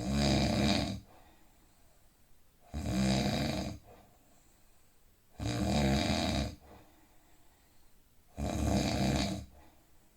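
A person snoring in deep sleep, in a steady rhythm: four loud snores, each about a second long, one roughly every three seconds, with quiet breathing between them.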